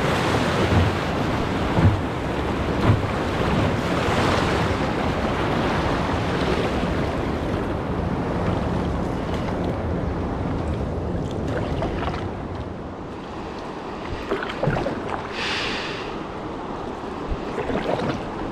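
Wind buffeting the microphone over a steady rush of water, with low thumps in the first half that ease off later.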